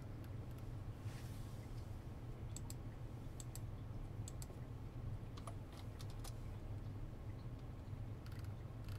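Scattered, irregular clicks of a computer keyboard and mouse, heard as software settings are entered, over a low steady hum.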